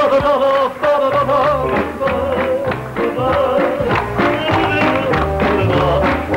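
An upbeat song: a man sings long wavering notes over piano, and the audience claps along in rhythm.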